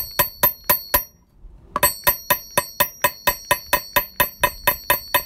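A hammer rapidly striking the top of a hollow metal hole punch, about four sharp ringing strikes a second, driving it through two thick layers of fabric to cut a grommet hole. The strikes stop for under a second about a second in, then start again at the same pace.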